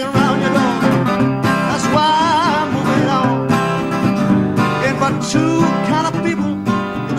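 Metal-bodied resonator guitar picked in a driving country-blues instrumental passage, with some notes bent or slid so that they waver in pitch.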